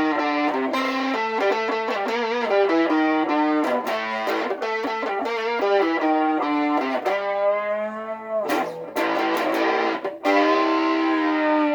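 Electric guitar played through a Fluid Audio Strum Buddy portable amp with its crunch and chorus effects on, picking a single-note riff of quick changing notes with a few bent notes.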